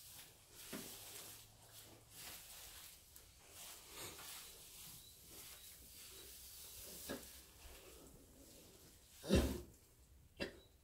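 Shetland pony mare in labour lying in straw: soft rustling of straw and breathing, then a short loud blast of breath about nine seconds in and a smaller one a second later.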